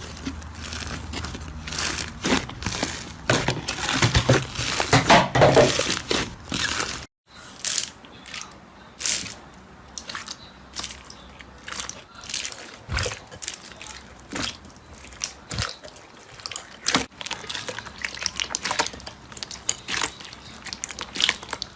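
Slime being squeezed and pressed by hand, making crackling and popping sounds: dense crackles for about seven seconds, a sudden break, then sparser pops and clicks.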